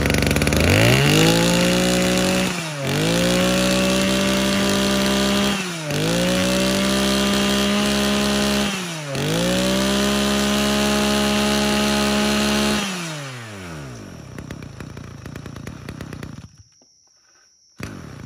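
Kioritz 23cc two-stroke brush cutter engine revved from low to high speed and held there, dipping briefly and climbing straight back twice, then the throttle is released and it winds down about thirteen seconds in. It is the fast-revving version of this engine.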